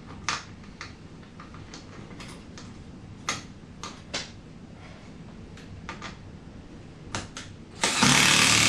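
Scattered light clicks and knocks of seatbelt hardware being handled and fitted to a car seat. Near the end a loud power tool starts up, driving in the seatbelt bolt.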